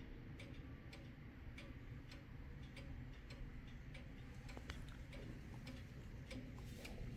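Kienzle oak-cased pendulum wall clock ticking steadily: the escapement gives an even tick-tock, about two to three beats a second.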